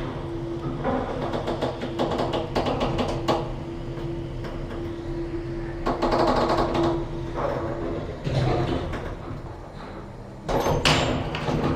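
Original Express lift in operation: a steady hum with a run of sharp relay-like clicks in the first few seconds, the sliding doors moving, and a louder knock or door bang about ten seconds in.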